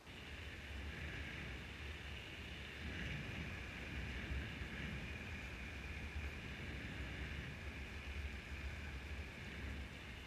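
Bicycle riding along a tarmac path at speed: steady wind rumble on the GoPro's microphone with an even hiss of tyres rolling on tarmac.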